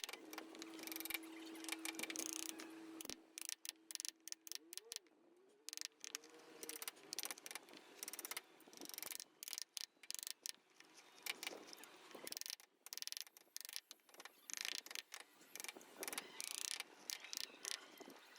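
Hand wood-carving: irregular sharp taps and clicks of a chisel working into wood, with a steady hum in the first three seconds.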